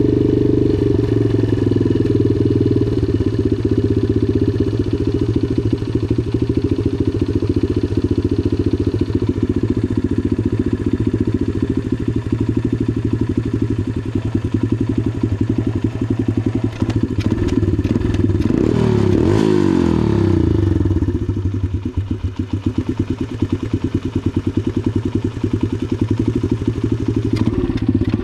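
Dirt bike engine running at a fast, too-high idle, with a steady pulsing note. About two-thirds of the way through the engine speed swings and drops, then settles at a lower, quieter idle.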